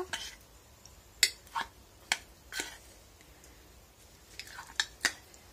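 Metal fork clicking and scraping against an opened tuna tin and the salad bowl as tuna is picked out in small pieces: a few sharp clicks about half a second apart, then a few more near the end.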